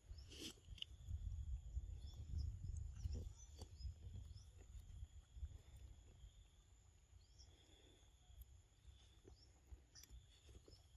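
Faint forest ambience: a steady high drone of insects over a low rumble of wind on the microphone, with a few soft clicks.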